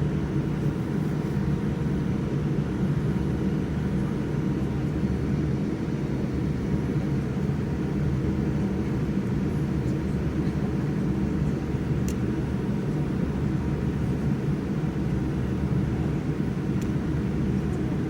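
Boeing 787-8 jet airliner making a steady, muffled low rumble, even throughout.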